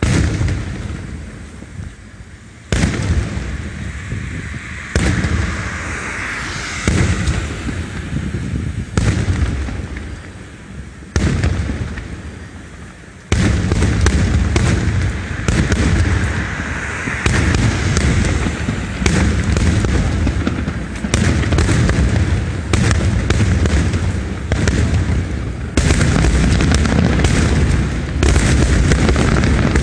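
Fireworks display: single aerial shells go off with a sharp boom every two seconds or so, each dying away. About halfway through they give way to a rapid, continuous barrage of booms and crackling bursts.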